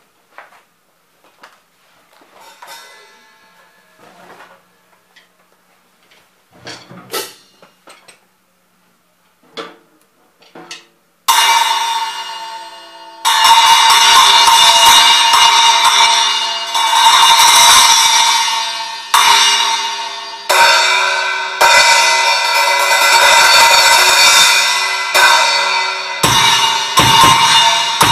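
Splash cymbal struck and left to ring: light taps and a few soft hits at first, then from about eleven seconds in a loud, bright crash that fades, re-struck every second or two. A bass drum comes in under the cymbal hits near the end.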